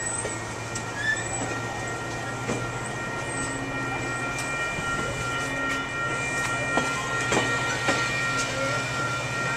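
Passenger train at the station: several steady high-pitched tones over a low hum, with scattered short clicks.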